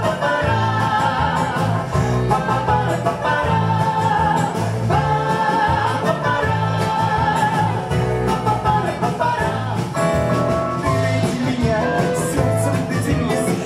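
Live small band playing a song: clarinet, bayan (button accordion), acoustic guitar, bass and drums over a steady beat, with a woman's voice singing.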